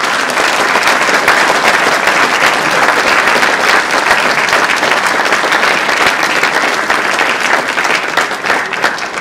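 Large audience applauding: dense, steady clapping that starts to thin out and fade near the end.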